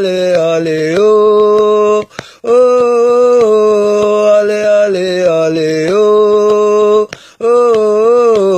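Male vocals singing the wordless "oho oho" refrain of an ultras fan chant, long held notes that step and waver in pitch, in phrases broken by short pauses about two seconds in and near the end.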